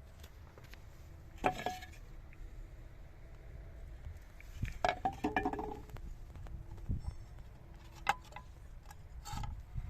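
A few scattered clicks and clinks of hard objects being handled. One comes about a second and a half in, a quick cluster about five seconds in, and more near the end, over a faint steady hum.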